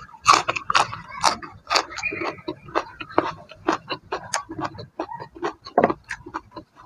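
Close-up mouth sounds of a person chewing a crisp raw vegetable: sharp, crisp crunches at about four a second, loudest in the first couple of seconds after the bite.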